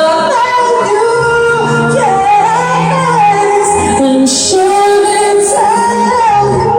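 A woman singing a pop ballad live over a backing track, her voice holding and bending long notes.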